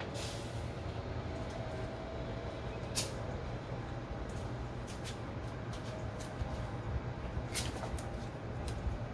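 Steady low background rumble with scattered small clicks and rustles from handling duct tape at a workbench, the sharpest click about three seconds in and another near the end.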